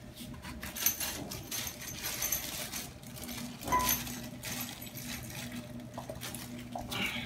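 Rustling plastic wrapping and clinking metal drill-press parts being handled, with scattered clicks and a sharper knock about a second in and another near the middle.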